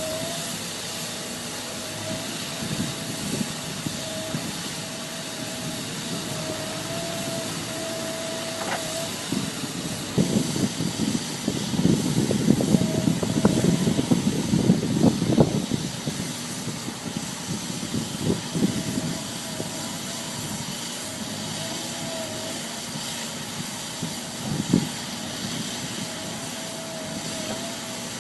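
Farm machinery running: a steady hiss with a faint wavering whine, growing louder and rougher for several seconds in the middle, with an occasional short knock.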